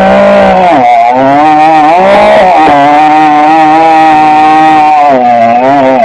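Two-stroke chainsaw held at full throttle while cutting through a log, its pitch sagging under load about a second in, near halfway and again near the end, then picking back up.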